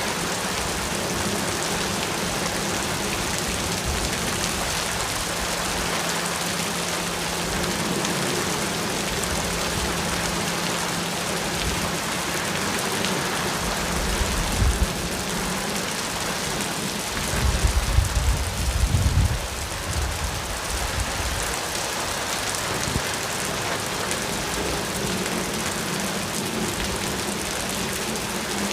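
Steady rain falling, an even hiss of drops on surfaces. There is a brief low rumble about fourteen seconds in and a longer, louder one from about seventeen to nineteen seconds.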